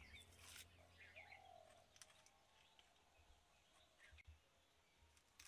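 Near silence with faint birds chirping and calling now and then.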